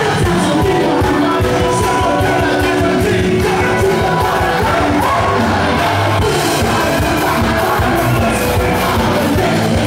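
Live rock band playing: a male singer over electric guitars, keyboard and drums, loud and steady.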